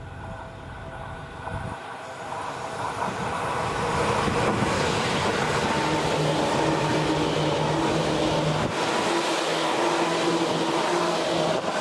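Seibu 10000 series Red Arrow limited express electric train approaching and passing close by. The rumble of wheels on rail grows over the first few seconds, then becomes a loud steady rush with a steady hum as the cars go past.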